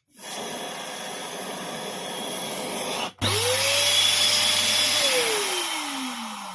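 Electric air pump running with a steady rush of air, cutting out for a moment about three seconds in. It starts again with its motor whine rising to a steady pitch, then is switched off and winds down in a long falling whine.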